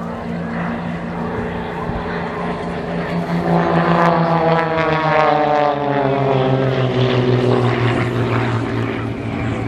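Piston-engined propeller aircraft flying past overhead. Its engine note swells about four seconds in, then drops in pitch as it goes by.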